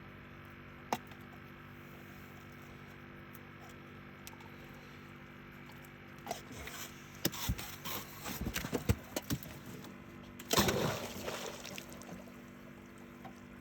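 Water splashing and trickling beside a boat, with scattered small knocks and clicks and one louder splash a little past the middle. A faint steady hum runs underneath.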